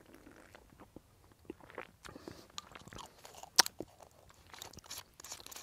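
Screw cap being twisted off a bottle of red wine: a run of small crunching, grinding clicks as the cap turns, with one sharp crack about three and a half seconds in.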